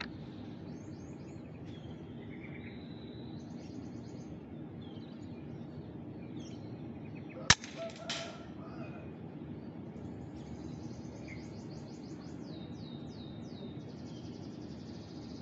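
Small birds chirping and twittering over steady outdoor background noise. About halfway through, a single sharp gunshot crack from the hunter's gun, followed about half a second later by a softer knock.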